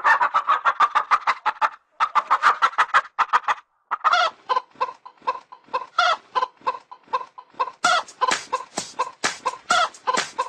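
Domestic chickens clucking rapidly, about five clucks a second, with short breaks about two and four seconds in.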